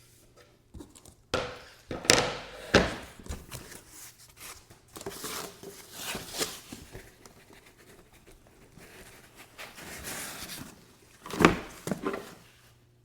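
Foam packing and desk parts being handled in a shipping box: rustling and scraping with several knocks, the loudest near the end.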